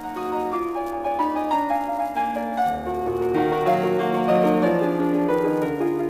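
Instrumental piano music: a flowing line of many short notes over chords, growing louder in the first second.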